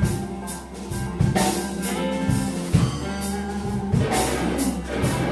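Live blues band playing a slow blues instrumentally between vocal lines: electric guitar, bass, drum kit and keyboards.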